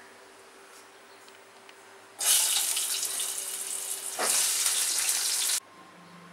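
Peeled potato pieces sizzling as they go into hot oil in a pan: a loud hiss that starts suddenly about two seconds in, dips briefly near the middle, and cuts off suddenly near the end.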